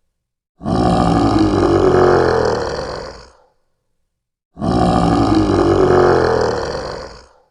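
Stock roar sound effect of a large beast, heard twice. Each roar lasts about three seconds, starting abruptly and fading away, with a second of silence between them.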